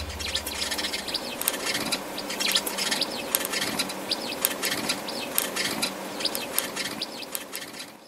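Sparrows chirping: a stream of many short, quick chirps, several a second, over a steady background hiss.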